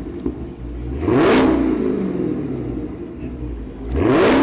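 Supercharged 6.2-litre Hemi V8 of a 2016 Dodge Challenger SRT Hellcat being revved in place twice, about a second in and again near the end. Each rev rises sharply and then falls back toward idle.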